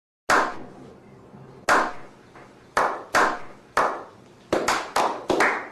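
A slow clap: hands clapping about ten times, each clap echoing. The claps come more than a second apart at first and quicken near the end.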